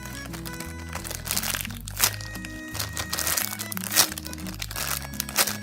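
Background music, with crinkly crunching over it from a homemade squishy being squeezed in the hands, the loudest crunches about two seconds and four seconds in.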